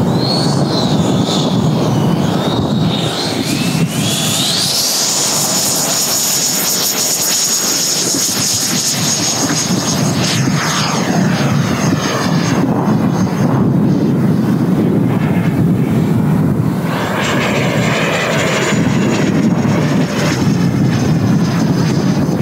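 A model jet's 90 mm electric ducted fan (WeMoTec Midi Evo on a HET 700-68 brushless motor) whines at high pitch. The whine rises sharply about four seconds in as the jet accelerates. It falls in pitch as the jet passes overhead around ten seconds in, and comes back near the end. Strong wind rumbles on the microphone throughout.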